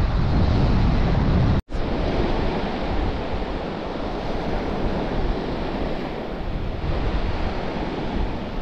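Steady wash of surf breaking on a beach, with wind noise on the microphone. The sound cuts out for an instant about a second and a half in, and the rumble is lighter after that.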